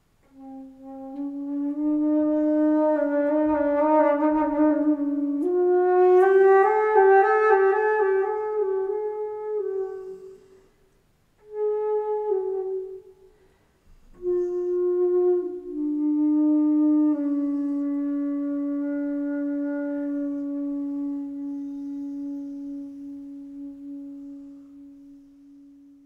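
Solo flute improvising a slow melody in its low register. It plays phrases broken by two short pauses and ends on a long low note that fades away.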